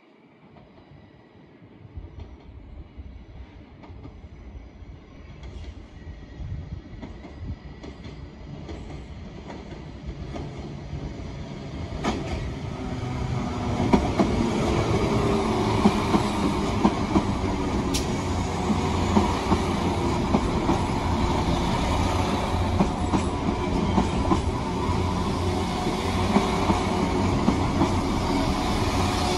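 Two coupled Class 172 Turbostar diesel multiple units approaching and passing close by. The underfloor diesel engines and running gear grow steadily louder over the first half, then hold loud as the carriages go past, with the wheels clicking over the rail joints.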